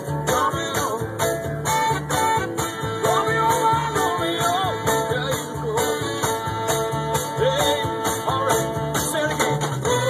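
Music: a song with a steady beat and a wavering melody line over low bass notes.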